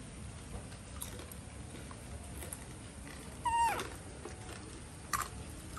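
A young monkey gives one short squeal that falls in pitch, about three and a half seconds in, during a tussle with another monkey over a banana. A couple of light knocks follow near the end.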